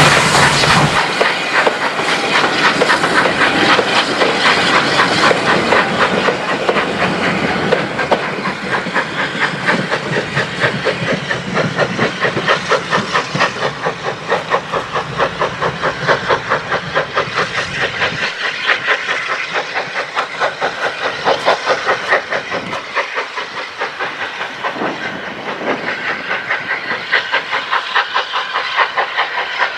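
SR U class 2-6-0 steam locomotive pulling away with its train, a steady rhythmic exhaust beat over the hiss of steam. The beat grows a little fainter as it draws away.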